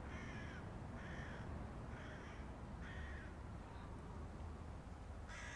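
A crow cawing: four short calls about a second apart, then one more near the end.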